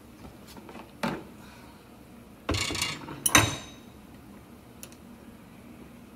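Metal tool handling: a short scraping rattle, then one sharp clank with a high metallic ring, as a steel spanner wrench is taken up and set against the Bridgeport R8 spindle's nose piece to tighten it.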